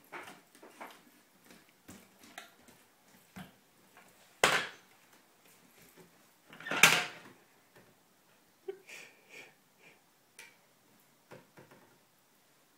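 Household knocks and clatter from a plastic toy dump truck and kitchen cabinet doors: a run of small clicks and taps, with two louder clattering knocks about four and a half and seven seconds in.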